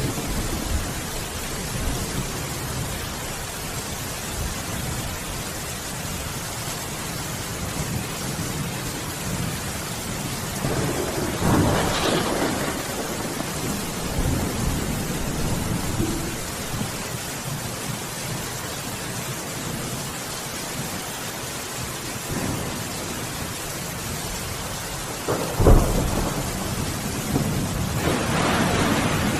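Steady heavy rain with rolling thunder: a long rumble swells and fades about halfway through, a sharp, loud thunderclap comes a few seconds from the end, and another rumble builds right after it.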